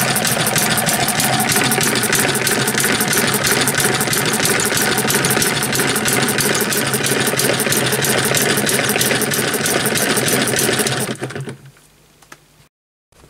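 Model Eachine ET1 M90 hit-and-miss gas engine running with a rapid, even clatter of firing strokes while belt-driving a 12-volt DC motor used as a generator. It stops about eleven seconds in.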